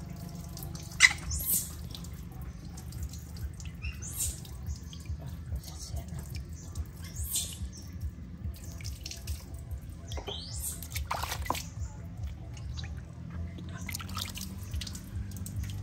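Water poured from a plastic jug over a small wet baby monkey, trickling and dripping onto a concrete ledge, with a brief sharp sound about a second in.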